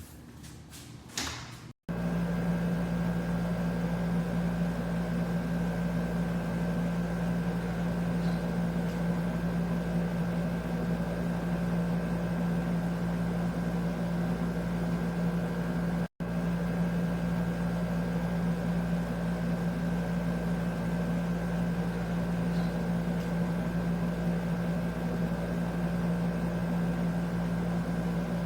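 Air conditioner running: a steady hum with a strong low tone and a fainter, higher whine. It starts abruptly about two seconds in, after a few faint clicks, and breaks off for an instant midway.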